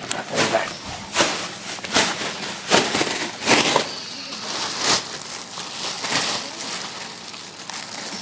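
Wrapping paper being torn and rustled as a present is unwrapped, in a series of short ripping bursts about one a second, easing into softer rustling after about five seconds.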